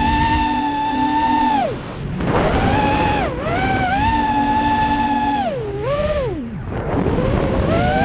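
A small FPV racing quadcopter's brushless motors and props, heard from the camera on board, whining in flight. The high whine holds, then falls away sharply and climbs back as the throttle is cut and reapplied: about two seconds in, again around three and a half seconds, and twice more between six and seven seconds.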